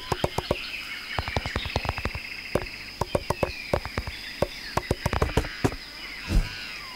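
Cartoon sound effects over a steady high tone: a long run of quick, irregular clicks, then a low thud about six seconds in.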